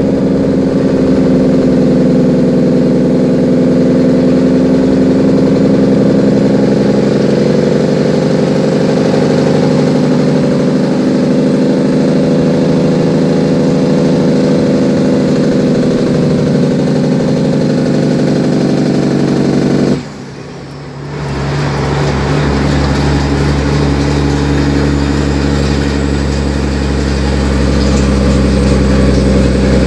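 A heavy truck's Cummins N14 diesel engine running, heard from inside the cab. About two-thirds of the way through the sound drops away for about a second, then comes back with a deeper, lower note.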